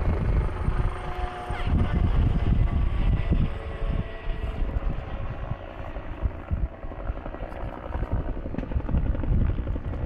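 A military helicopter flying over, with the low rumble of armoured vehicles' engines beneath it; the noise swells and fades unevenly.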